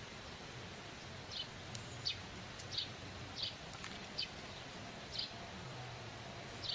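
A bird calling a series of short, falling chirps, roughly one every second, starting about a second in, over steady outdoor background noise.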